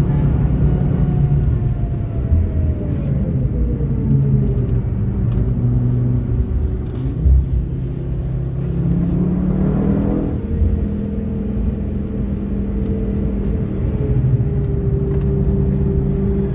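Audi TT RS 8J's turbocharged 2.5-litre five-cylinder engine heard from inside the cabin. Its note falls as the car slows from high speed, rises again about ten seconds in as it pulls in third gear, then holds steady.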